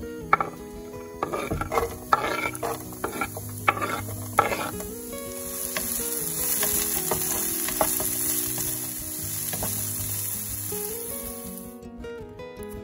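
Food frying in hot oil in a pan. A utensil knocks and scrapes against the pan for the first few seconds, then a steady sizzle builds and holds, fading near the end.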